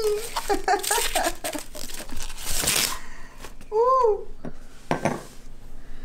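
Foam packing wrap crinkling and rustling as it is pulled off a small stemmed wine glass, followed by a light knock or two of glass being set down on a table near the end.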